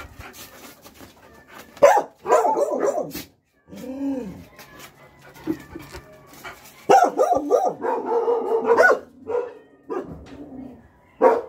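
Dogs barking and yipping in loud bursts, with a single rising-and-falling whine about four seconds in and a sharp bark near the end.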